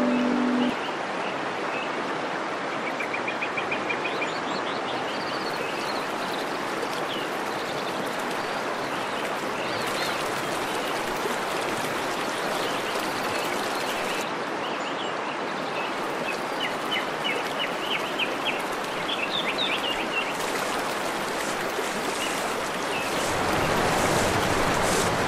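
Forest stream rushing steadily, with birds chirping in short runs of calls now and then.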